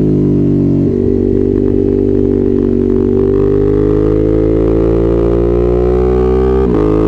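Ducati Monster's V-twin engine pulling under way, its note shifting about a second in and then climbing steadily in pitch. Near the end there is a brief sharp break in the note, typical of the quickshifter cutting ignition for an upshift.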